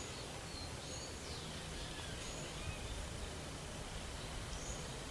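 Steady outdoor background hiss with a few faint, short, high bird chirps scattered through it.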